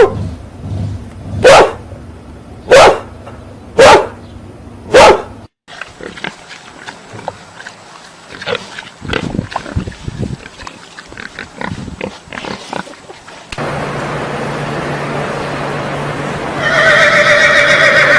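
Farm animal sounds in sequence: a dog barks four times, about once a second; after a cut come a few seconds of small scattered animal sounds; then, near the end, a horse whinnies loudly.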